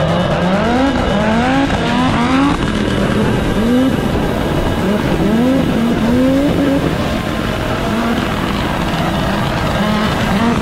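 Audi Quattro S1 rally car's turbocharged five-cylinder engine under hard acceleration, its pitch rising again and again through quick gear changes. A fast run of rising revs comes in the first couple of seconds, another group comes around the middle, and the engine holds steadier near the end.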